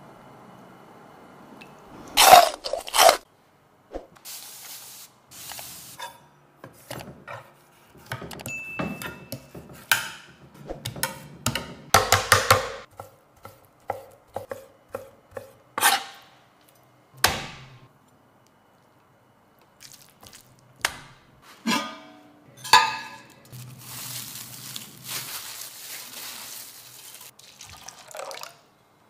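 A run of kitchen sounds: a knife slicing and knocking on a wooden cutting board in a series of separate strokes, then water poured in a steady stream into an enamel pot of rice near the end.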